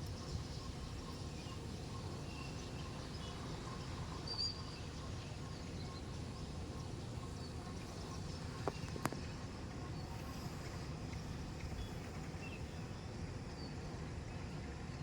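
Outdoor ambience of wind on the microphone: a steady low rumble, with a few faint high chirps and a single sharp click about nine seconds in.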